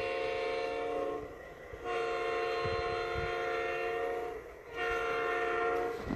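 Sound-equipped G-scale model diesel locomotive blowing a recorded multi-chime air horn in separate blasts. One blast ends about a second in, a long one follows, and a short one comes near the end: part of the long-long-short-long grade-crossing signal.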